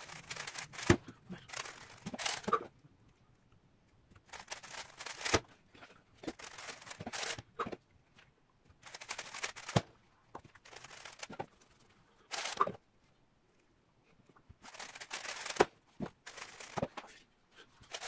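GAN 356 XS speedcube being turned very fast by hand. It makes bursts of rapid plastic clicking and rattling about a second or two long, broken by short pauses and several sharp knocks as the cube is set down and the timer is hit.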